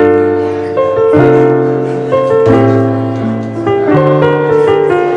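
Background music led by piano, with sustained chords changing about every second over a steady bass.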